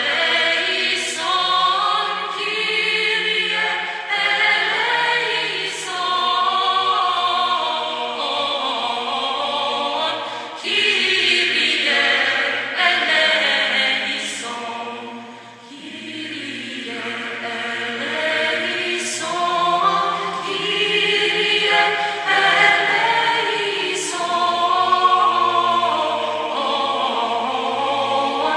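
A choir singing Orthodox Byzantine chant, in long held phrases with short breaths between them.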